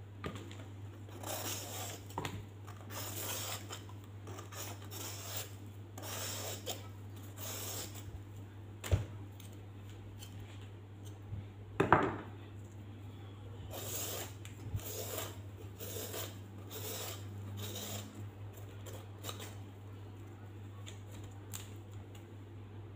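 Small kitchen knife peeling the ridges and skin off a ridged gourd (patola): irregular scraping strokes, with sharper knocks on the plastic cutting board about nine and twelve seconds in.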